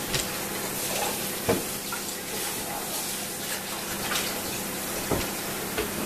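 Panasonic Dimension 4 combination microwave oven running in its baking cycle: a steady fan whir with a low hum, and a few faint knocks.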